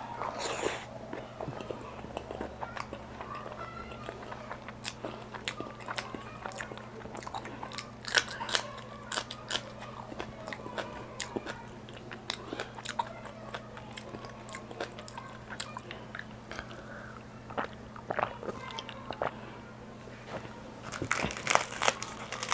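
Close-miked eating sounds: chewing and biting with wet mouth smacks and crisp clicks, with a denser, louder run of bites near the end.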